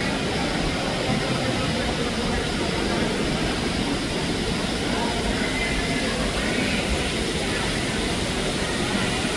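Indoor water-curtain feature: falling water makes a steady rushing hiss, with faint voices of passers-by underneath.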